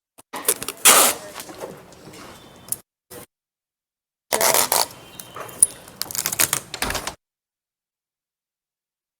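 Brown packing tape being pulled off the roll and pressed down with handling noise, in two long noisy stretches and one short one near 3 seconds, separated by dead gaps.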